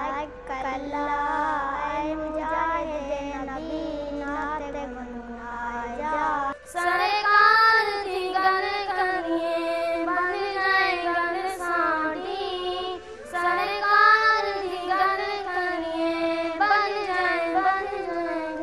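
A child's voice sings a slow melody. About six and a half seconds in, a second boy's voice takes over, higher and louder.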